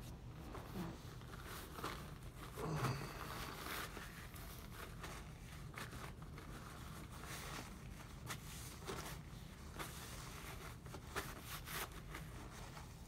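Soft, irregular rustling and crinkling of a paper napkin as hands are rubbed and wiped with it, a louder rustle about three seconds in.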